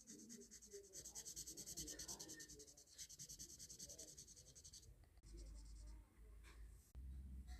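Faint, fast back-and-forth scratching, about nine strokes a second, for the first five seconds, then a few separate short scratches near the end.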